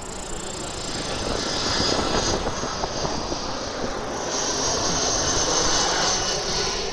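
Jet airliner coming in to land, a steady rushing engine noise with a high whine that grows louder in the second half.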